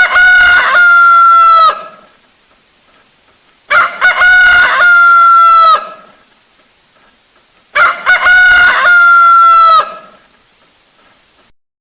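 Rooster crowing three times, each cock-a-doodle-doo about two seconds long and about four seconds apart. The three crows are identical, the same crow repeated.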